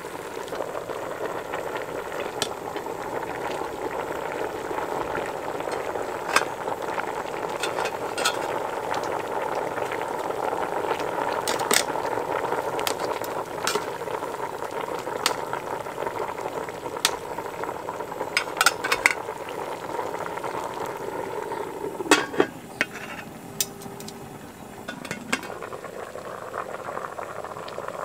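Large aluminium stockpot of boil up bubbling steadily at a boil on a gas burner, lid off, with metal tongs clinking against the pot from time to time as pork and sausages go in and are stirred. A quick run of clinks comes about two-thirds of the way through, and the bubbling eases a little near the end.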